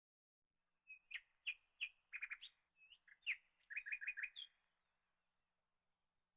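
A small songbird singing a short phrase of sharp chirps and quick trills, from about a second in to about four and a half seconds.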